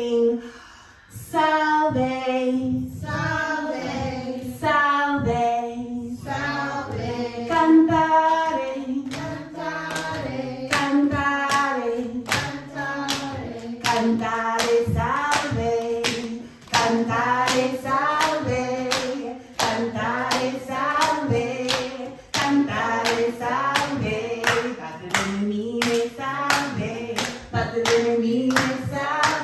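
A group of women singing a children's chant together, with hand claps keeping a steady beat through most of it.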